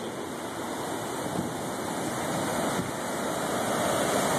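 Heavy storm surf breaking on a rocky shore: a steady rush of water that swells gradually louder.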